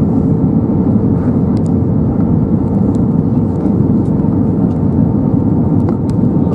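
Steady cabin roar inside an Airbus A320-232 on descent, heard from a seat over the wing: airflow and its IAE V2500 jet engines, with a constant hum tone running through it.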